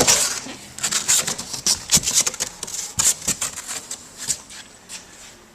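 Irregular clicking, tapping and rustling of parts and packaging being handled, thinning out near the end.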